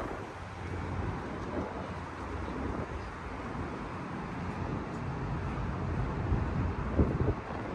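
Steady road traffic on the bridge deck, cars passing close by with a continuous rumble and a few louder swells near the end.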